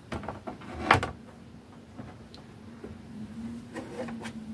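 Handling noise from a PlayStation 5 console being moved about on a wooden desk: scattered plastic knocks and rubbing, the loudest knock about a second in. A faint steady hum runs underneath from about two seconds in.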